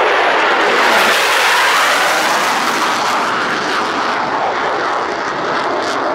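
Jet noise from a US Air Force F-16 fighter flying a display pass, loudest about a second in and then slowly fading.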